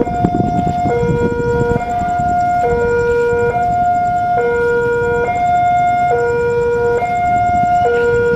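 Railway level-crossing warning alarm sounding a steady two-tone signal, switching between a high and a low tone a little under once a second, over low background noise. It is the warning that a train is approaching the crossing.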